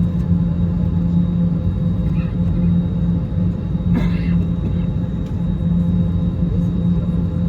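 Steady low drone inside an Airbus A321neo airliner cabin, with a constant hum and a short louder sound about four seconds in.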